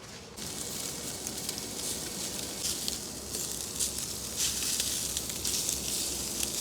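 Meat sizzling in a hot pan, a steady frying hiss with sharp crackles that starts suddenly under half a second in.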